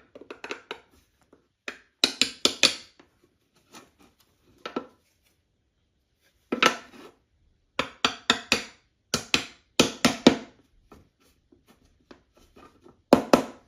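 3D-printed plastic frame pieces and joining clips being handled and pushed together: clusters of sharp plastic clicks and clacks, several in quick succession, separated by quiet gaps.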